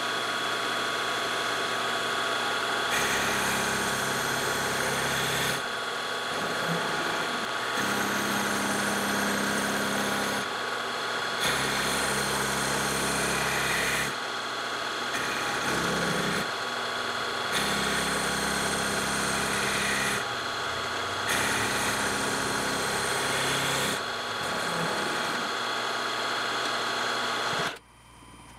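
Benchtop milling machine running with a steady motor whine while an end mill cuts a channel into a block of walnut, in about six passes of two to three seconds each with short breaks between. The spindle cuts off suddenly near the end.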